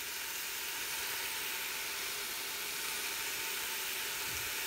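Chopped carrots, onions and celery sizzling as they sauté in a stockpot: a steady, even hiss.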